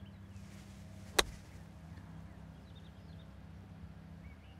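A single sharp click about a second in: a Callaway Opus wedge striking a golf ball on a short pitch shot.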